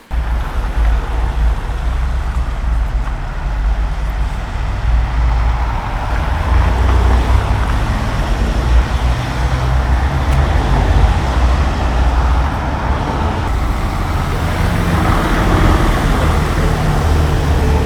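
City avenue traffic: cars, buses and trucks passing in a dense rumble of engines and tyres, heaviest in the deep low end.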